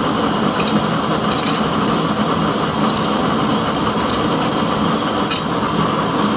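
Both burners of a double-burner oil stove burning with a steady rushing noise and a low hum, with a few sharp crackles.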